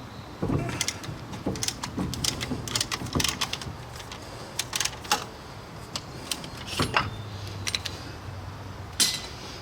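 Brake caliper parts and tools being handled: irregular metallic clicks, taps and knocks, a few louder clacks about half a second in, around five seconds and just before nine seconds.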